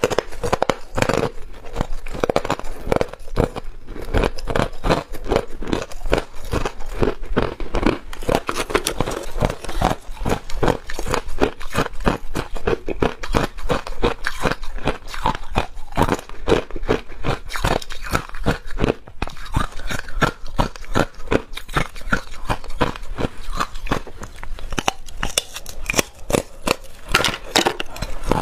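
Hard ice being bitten and chewed close to the mouth, a continuous run of sharp cracks and crunches as the pieces break between the teeth.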